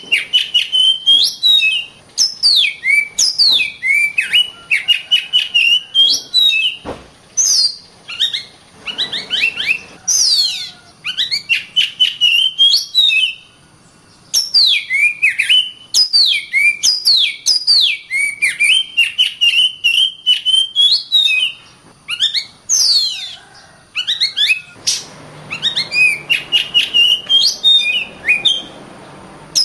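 Oriental magpie-robin (kacer) singing a long, varied song of rapid whistled sweeps, warbles and trills, delivered in loud phrases of a second or two separated by short pauses. A single sharp click is heard about seven seconds in.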